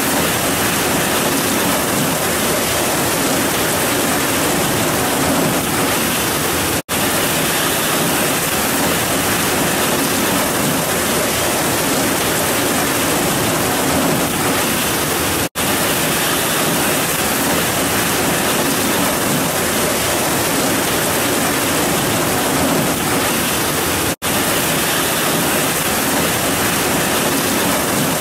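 Heavy rain pouring down in a steady, dense hiss, with no thunder. The sound cuts out for an instant three times.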